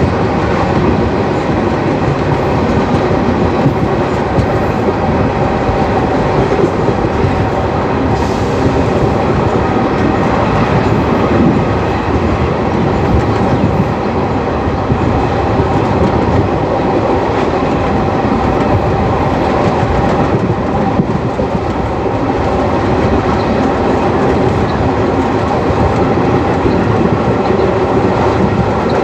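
Indian Railways ICF passenger coach running at speed, its wheels on the track making a steady, dense rumble with no horn sounding.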